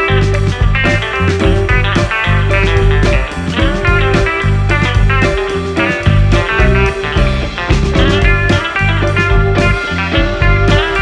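Background music: a blues-rock track with electric guitar over a steady bass line.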